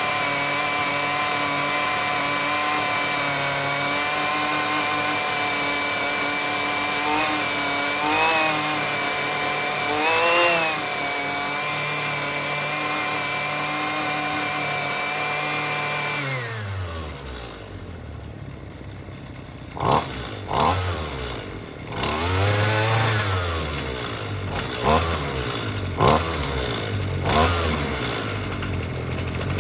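Husqvarna string trimmer's small engine running at steady high speed, briefly revving higher twice, then dropping to idle about sixteen seconds in. At idle it is given several quick throttle blips and then settles back at idle, as it is tested during carburettor adjustment after the fuel line repair.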